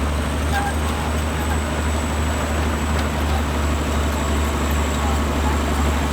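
Engine running steadily, a low, even drone with no change in speed.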